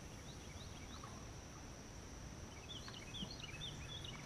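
Insects droning steadily at a high pitch, with a bird giving strings of short chirping notes, a few faint ones near the start and a longer run about three seconds in.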